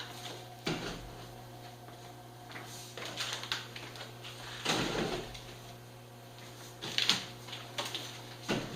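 Shrink-wrapped packs of beer being handled and set down on a stack: irregular crinkling of plastic wrap and dull bumps, the loudest about five seconds in and again about seven seconds in.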